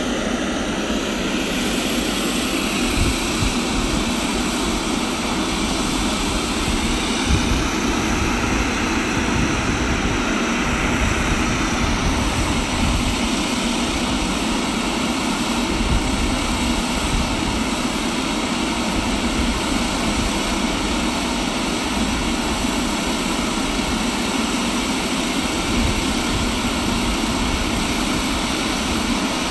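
Let L-410 twin-turboprop engines idling on the ground, a steady, unchanging engine noise that neither rises nor falls.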